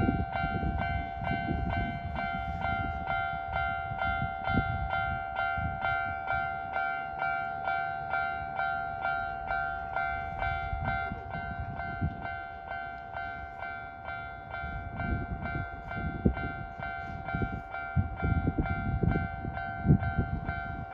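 Japanese level-crossing electronic warning bell ringing steadily, about two strokes a second. Under it a Nankai Main Line train rumbles over the rails at the start, fading within a few seconds. A train's rumble builds again from about three-quarters of the way through.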